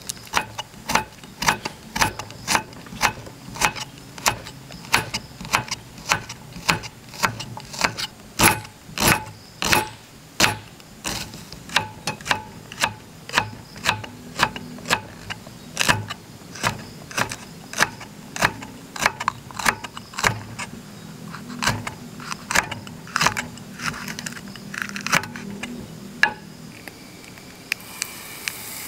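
Cleaver-style kitchen knife chopping onion and green chilli on a wooden cutting board: steady knocks of the blade on the board, about two a second, stopping a couple of seconds before the end. Near the end a faint sizzle starts as margarine goes into the hot pan.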